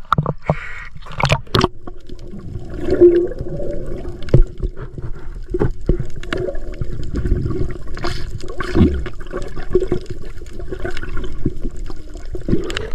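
Seawater gurgling and sloshing around a submerged action camera, muffled as heard underwater, with scattered clicks and knocks and a steady low hum underneath from about three seconds in.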